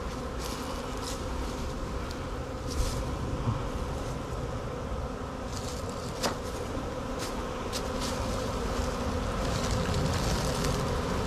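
Swarm of honeybees buzzing in a steady hum as they fly around the hive box they have just been shaken into, starting to go inside. A few short sharp ticks stand out over the hum.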